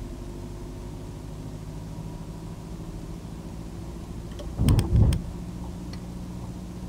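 Steady hum of a car's engine and running gear heard from inside the cabin, with a brief loud thump and a few sharp clicks just under five seconds in.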